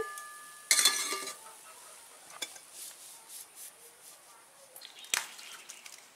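Metal dishes and utensils clattering: one loud clank that rings on briefly about a second in, then a few light taps and another sharp knock near the end.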